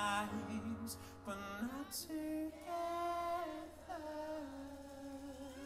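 Male pop singer singing slow, drawn-out lines of a ballad live into a microphone, the notes held with vibrato, over soft keyboard chords and a sustained low bass note.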